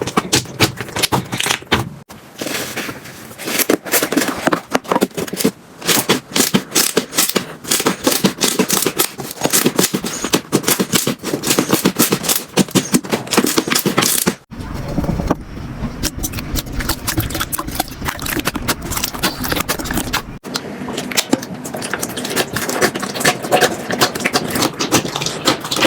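Slime being squeezed and pressed by hand, giving dense, rapid crackling and popping clicks. The texture changes abruptly about 2, 14 and 20 seconds in.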